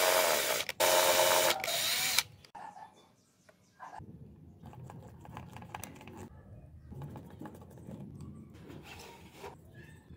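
A power drill running with a couple of brief pauses as it bores a small hole through a PVC base, stopping about two seconds in. After a short lull, a hand screwdriver turns a small screw into plastic, with faint clicks and scraping.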